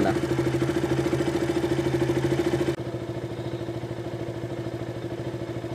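KTM RC 200's single-cylinder four-stroke engine idling with an even, steady beat, its loose spark plug cap now reseated. The rpm holds steady and the ticking spark sound is gone, the sign of the idle stalling and misfire being cured. About two and three-quarter seconds in, the sound drops suddenly in loudness.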